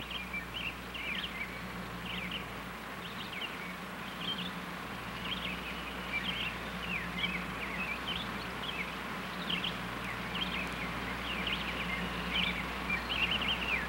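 Small birds chirping, many short high calls scattered throughout, over a low steady hum.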